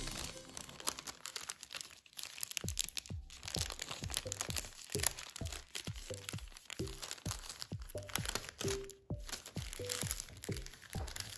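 Origami paper being folded and creased by hand: irregular crinkling and sharp little crackles as creases are pressed in.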